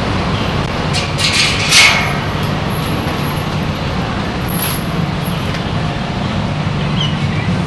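Steady urban traffic noise with an engine drone underneath, and a short loud hissing noise about one and a half seconds in.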